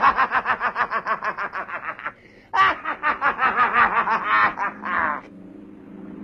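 A man's long laugh in two stretches of rapid pulsed laughter, the second starting after a short catch of breath about two and a half seconds in and dying away about five seconds in.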